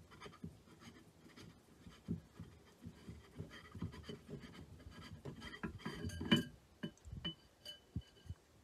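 Faint scraping and small clicks of the air reservoir of a Benjamin Bulldog PCP air rifle being unscrewed by hand from the receiver, its threads rubbing. The handling grows busier about halfway through, with a few light metal clinks.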